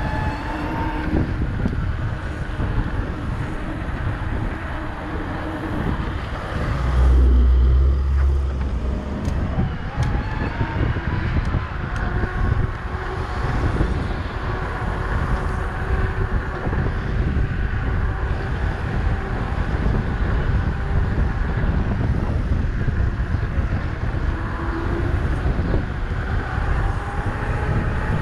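Electric mountain bike riding down a paved road: wind rushing over the camera microphone and tyres rolling on asphalt, with a thin whine that slowly rises and falls in pitch. A heavy gust of wind buffets the microphone about seven seconds in.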